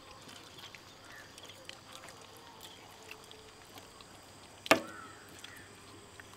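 Quiet outdoor ambience with a faint steady insect drone and scattered light clicks. One louder sharp click comes a little under five seconds in.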